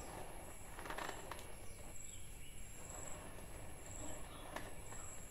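Quiet background with a faint, high-pitched chirp repeating about once a second, and a few soft clicks.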